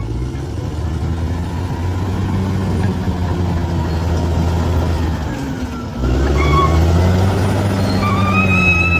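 Bulldozer's diesel engine running steadily under load. Its pitch sags and recovers just before a sudden step up in loudness about six seconds in. A high steady whine joins near the end.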